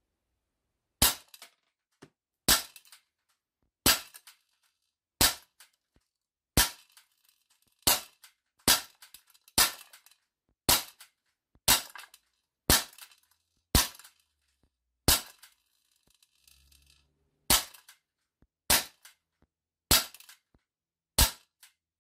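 Silver Baby Desert Eagle 4.5 mm CO2 steel-BB pistol (non-blowback) fired shot after shot, about seventeen sharp cracks roughly one every 1 to 1.5 seconds, with a longer pause about two-thirds of the way through. Faint ticks follow many of the shots.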